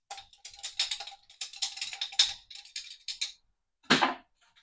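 Spice jar shaken over a bowl of ground meat, a quick irregular rattling of clicks as the seasoning is sprinkled in, then one louder knock near the end.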